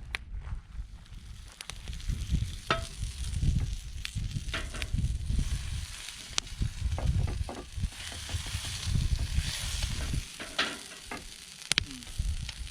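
Campfire coals crackling and sizzling around a cast-iron pie iron cooking a quesadilla, with scattered sharp clicks and pops over a low, uneven rumble.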